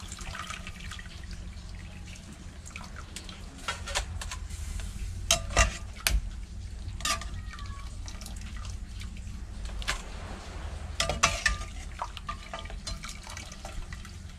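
Metal ladle scooping blanched bamboo shoots out of a pot of hot water, with water dripping and splashing back into the pot. Scattered sharp clinks of the ladle against the pot and bowl, the loudest about five and a half and eleven seconds in.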